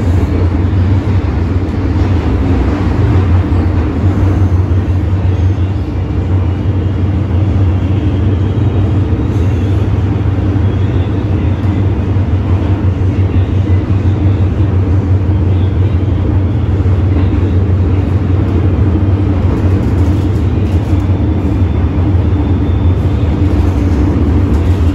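MTR M-train electric multiple unit running between stations, heard from inside the passenger car: a steady, loud low rumble of wheels, running gear and traction motors.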